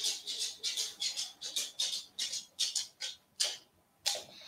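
A dog making quick, light ticking sounds, about three a second, which break off shortly before the end and are followed by one sharper, louder sound.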